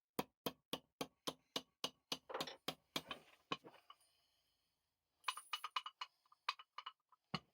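Hammer tapping a pin into a vise's screw assembly: about a dozen quick, even strikes, metal on metal. After a short pause come lighter, ringing metal clinks as parts are handled.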